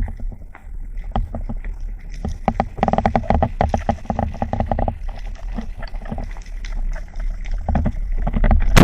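Seawater sloshing and splashing around a swimming spearfisher, with a low rumble and dense crackling clicks that are thickest in the middle.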